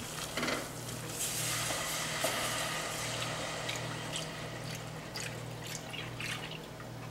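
Half-and-half poured into a hot butter-and-flour roux and whisked in, the liquid sizzling in the pan from about a second in, with a few clicks of the whisk against the pan.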